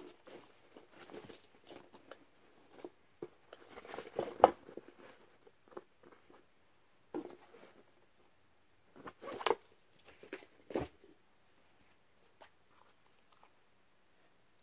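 Canvas gas mask carrier bags handled and shifted by hand, rustling, with a few sharp clicks and knocks: the loudest about four and a half seconds in, two more around nine and a half and eleven seconds in. It goes quiet with a few faint ticks near the end.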